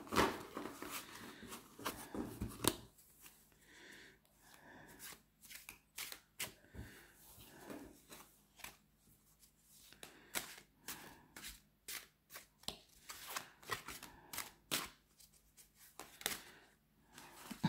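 A brand-new deck of tarot cards being shuffled by hand in a messy, fumbling shuffle: soft card flicks, slides and taps, busiest in the first three seconds, then scattered.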